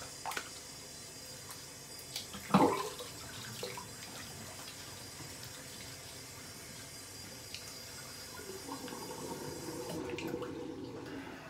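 Bathroom tap running into a sink while a freshly shaved face is rinsed with splashes of water, one loud splash about two and a half seconds in. The running water stops suddenly about ten seconds in.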